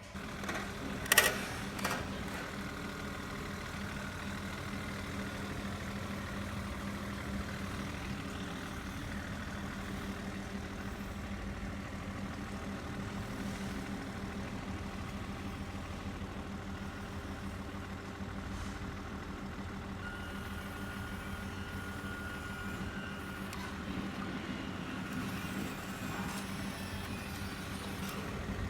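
Radio-controlled model of a CAT tandem vibration road roller running, giving a steady engine-like hum. A sharp knock comes about a second in.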